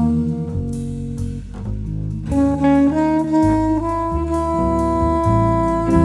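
Instrumental background music: a held melody line stepping between notes over a bass line and drums.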